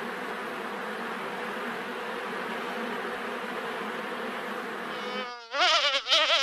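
Honeybee colony buzzing steadily in a nest inside a tree. About five seconds in, the buzz changes to a louder, wavering tone as a single bee flies close.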